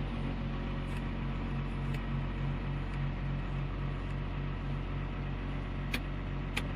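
Komatsu PC220-7 excavator's six-cylinder diesel engine idling steadily just after starting, heard from inside the cab, with an even low beat about three times a second. It stays at low idle and won't accelerate, a fault the mechanic suspects lies in the accelerator (governor) motor.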